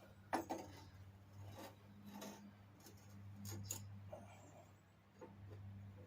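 Faint clinks, knocks and scrapes of metal parts being handled and shifted into place, the sharpest about a third of a second in, over a steady low hum.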